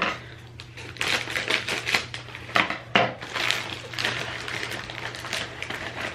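Crackling and crunching from flaky poppy seed crackers and their packet, a run of dry, irregular clicks.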